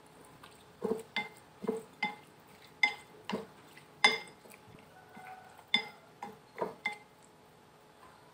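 Chopsticks clinking against a glass bowl while mixing seasoned raw shrimp: about a dozen sharp, irregular clinks, each with a short glassy ring.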